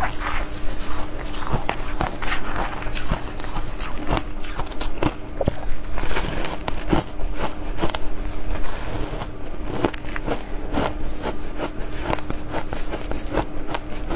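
Shaved-ice blocks coated in matcha powder being bitten and chewed: a fast, irregular run of crisp crunches.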